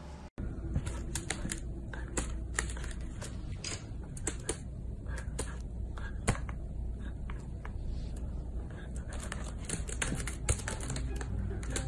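Golden retriever puppy's paws pressing and tapping the keys of a laptop keyboard: a run of irregular key clicks and taps.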